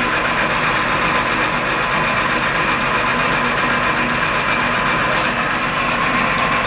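ENCO 13 x 40 bench lathe running under power, a steady whine over dense mechanical noise.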